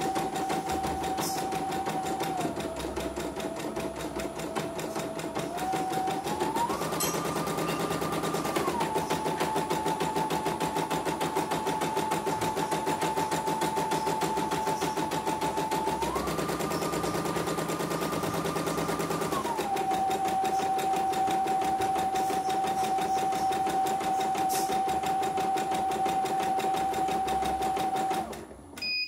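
CNY computerized embroidery machine stitching at speed: a rapid patter of needle strokes over a motor whine that steps up in pitch twice for a few seconds. Near the end it stops abruptly and gives a short beep, the stop that signals the bobbin thread has run out.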